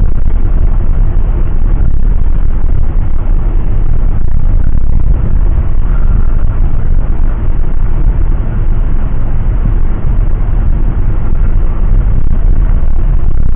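Loud, steady low rumble of an airliner's engines and airflow heard from inside the passenger cabin, so loud it overloads the phone's microphone.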